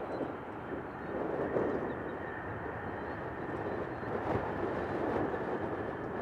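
Jet airliner engines running at a distance: a steady roar with a faint high whine above it.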